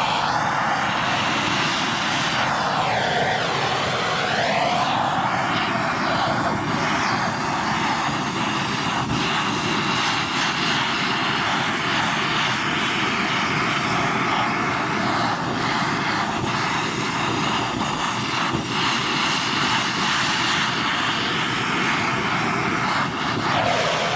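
Handheld gas torch burning with a steady, loud hiss as its flame heats the aluminium engine case around a bearing bore, expanding it so a new bearing will go in. The flame is shut off suddenly at the end.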